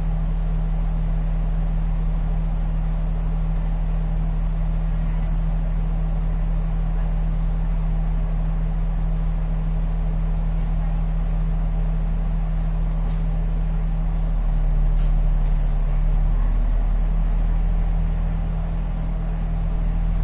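Bus engine idling steadily, heard from inside the cabin while the bus stands still: a low, even hum whose pitch dips briefly about two-thirds of the way through.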